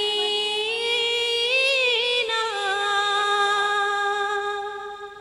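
A woman singing a naat unaccompanied, drawing out the last word of the line, "Madina", in one long held note with slight wavers that fades out near the end.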